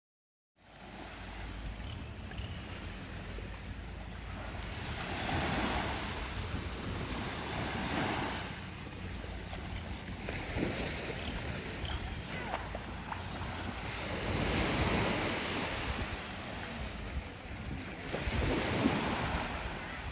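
Small waves washing onto a sandy beach, swelling and falling back every few seconds, with wind buffeting the microphone as a low rumble.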